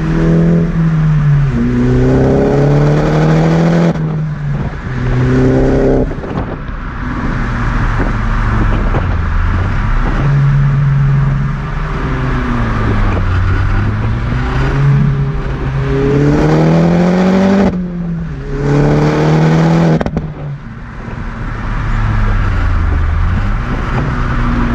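Exhaust of an Opel Corsa OPC, a 1.6-litre turbocharged four-cylinder with an aftermarket downpipe, heard from the rear while driving. Twice the revs climb hard through two gears, breaking off sharply at each shift, and in between the revs fall and rise more gently.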